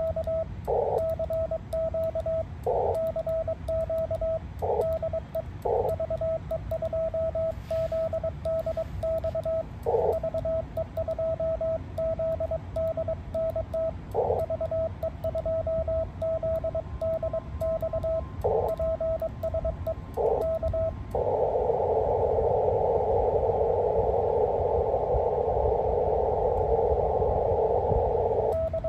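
Morse code (CW) sent by hand on an amateur radio transceiver, heard as a steady keyed sidetone of about 650 Hz in dots and dashes, with band hiss through the narrow CW filter breaking in during pauses between words. About 21 seconds in the keying stops and only the filtered band hiss remains while the receiver listens.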